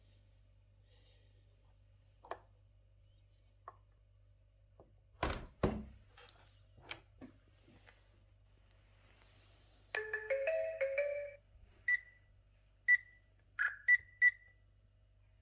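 Graupner MC-32 radio control transmitter being powered up: a few handling clicks and two knocks, then about ten seconds in a short electronic melody of stepped beeps, followed by five short single beeps as its keys are pressed at the RF on/off prompt.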